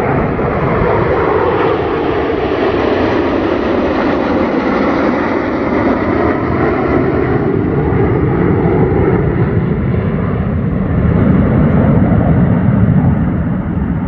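A formation of MiG-29 and Sukhoi fighter jets flying over, their jet engines making a continuous loud rushing rumble that drops slowly in pitch over the second half as they pass.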